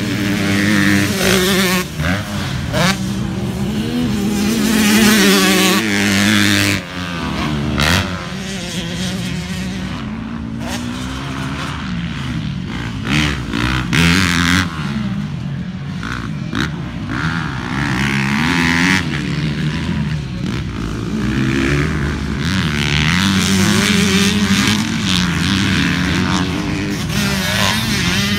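Motocross dirt bike engines revving hard and easing off as bikes ride past in turn, the pitch rising and falling with each throttle change and gear shift.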